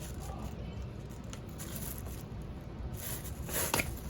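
Faint handling noises: soft rustling and scraping with a few light knocks.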